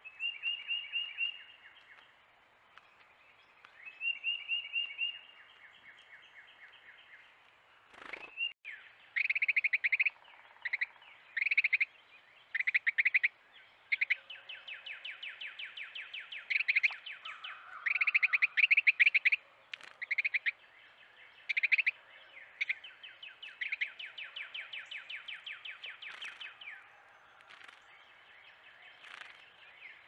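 Carolina wrens chattering in rapid trilled rattles, each a fast run of identical notes lasting about a second. Two short bouts come first, then after about nine seconds the rattles come louder and almost without a break, some long. A brief thump sounds about eight seconds in.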